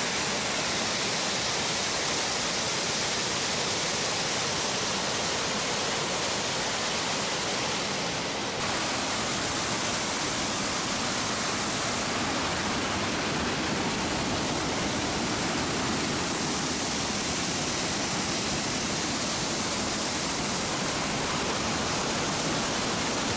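Steady rushing of water from the Leukbach waterfall plunging through Saarburg's old town, a dense even roar of falling water with a brief slight dip about eight and a half seconds in.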